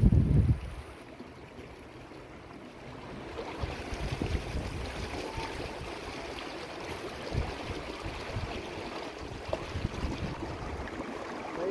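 Shallow, fast river rushing over rocks: a steady hiss of running water. Wind buffets the microphone for about the first half second.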